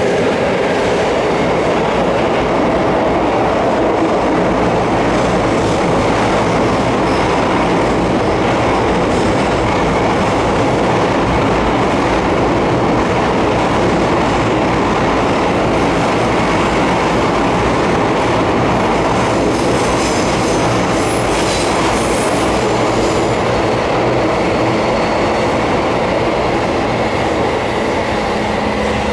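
Running noise inside a Tokyo Metro 07 series subway car travelling through the tunnel: a loud, steady rumble of wheels on rail, with a brief high wheel squeal about two-thirds of the way through.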